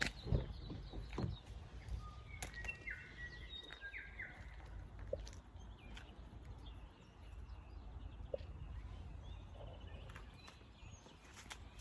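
Faint outdoor ambience: a steady low rumble with a few short bird chirps, and two soft thumps near the start.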